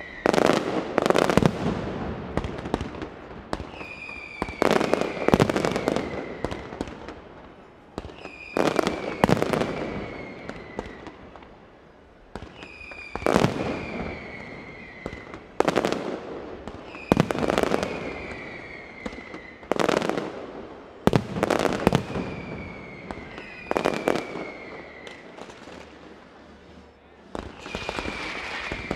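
Mascletà firecrackers going off in a repeating cycle about every four seconds: a short falling whistle, then a cluster of loud, sharp bangs that trails off into crackling.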